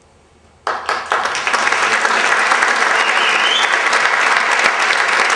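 Theatre audience breaking into applause suddenly, under a second in, then clapping steadily.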